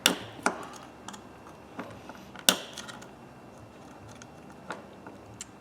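Scattered small metal clicks and taps of a screwdriver prying at the retaining clip of a Husky 1/2-inch drive ratchet, about half a dozen, the loudest about two and a half seconds in.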